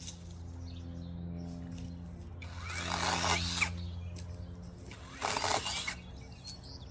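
A power saw cutting tree branches, running at a steady pitch. Two louder rough bursts come about two and a half seconds in and just after five seconds.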